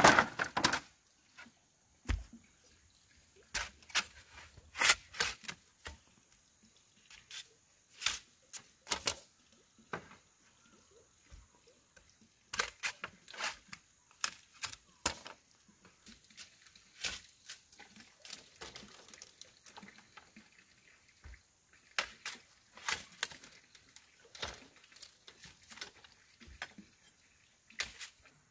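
Irregular sharp knocks and clatters of bamboo, as poles and split bamboo strips are handled, knocked together and struck with a machete.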